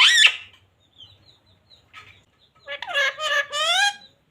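Pet parrot calling: a loud, harsh squawk right at the start, a few soft chirps, then a longer, wavering voice-like call in the second half.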